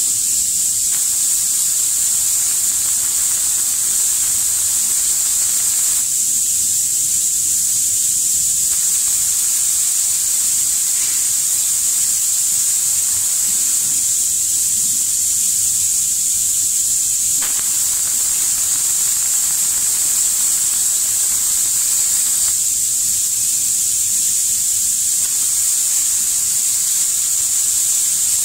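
Compressed-air spray guns of an automatic eyeglass-frame spray painting machine hissing steadily as they spray paint onto a rotating rack of frames. The hiss thins out for two to three seconds about every eight seconds.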